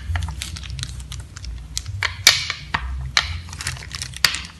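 Plastic cling wrap crinkling and crackling as a rolling pin presses dough flat beneath it, with irregular sharp clicks over a low rumble from the rolling pin on the mat.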